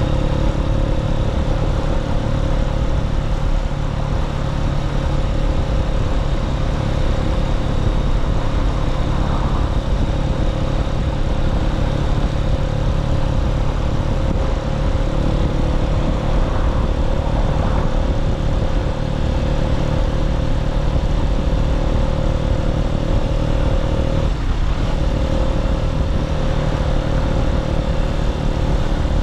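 Keeway K-Light 125cc motorcycle engine running at a steady cruise of about 30 mph, one even engine note that dips briefly a few seconds before the end.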